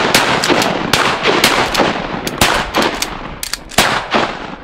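Duck hunters' shotguns firing a rapid volley: many overlapping blasts in quick succession from several shooters, each with a short ringing echo, the last about four seconds in.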